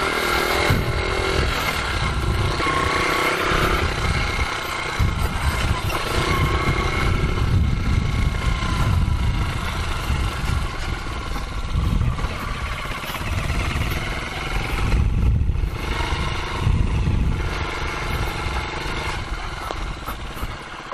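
Rusi KR 125 dirt bike's 125 cc engine running under way, its pitch rising and falling with the throttle, with heavy rumbling from wind on the microphone.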